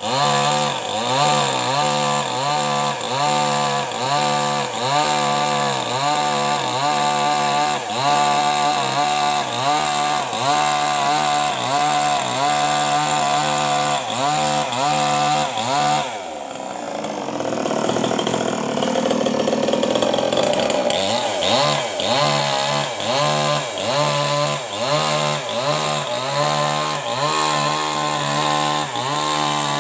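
Maestro CS6500L mini chainsaw ripping lengthwise through an acacia log, its engine note dipping and recovering about twice a second as the saw is worked in the cut. About sixteen seconds in the engine pitch drops sharply, runs rougher for a few seconds, then settles back into the same rhythm.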